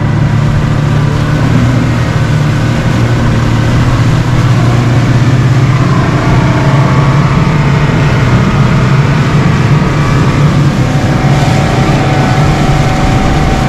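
Motorboat engine running steadily under way, a low even drone that picks up slightly just before and then holds.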